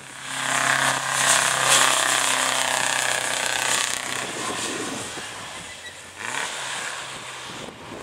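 1929 Frazer Nash Super Sports vintage racing car driving past under power. Its engine is loud for the first few seconds as it passes, then fades as it goes away up the hill, with a brief lift in the note about six seconds in.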